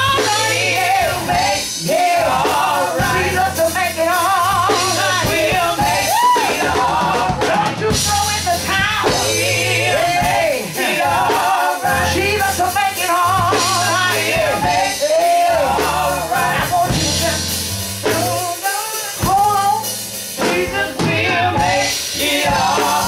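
Live gospel music: a woman sings lead with heavy vibrato over keyboard and drum kit.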